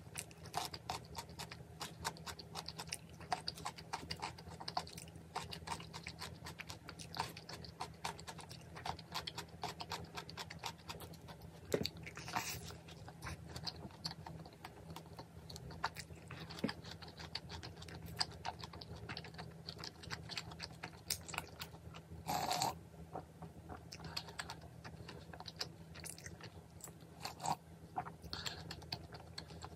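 A person chewing and biting into seasoned fried chicken and cheese balls, with dense small crunching and chewing clicks. Twice a louder short burst stands out, once about twelve seconds in and once about twenty-two seconds in.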